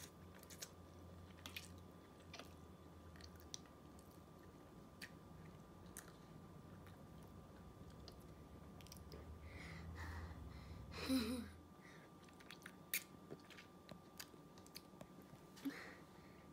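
A child slurping and chewing instant ramen noodles close to the microphone: quiet wet mouth clicks and smacks, with one louder burst about eleven seconds in.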